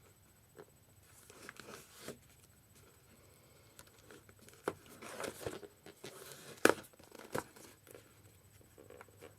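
Keyboard packaging being handled and torn open: intermittent rustling and tearing with scattered clicks, a sharp click about two-thirds of the way through the loudest.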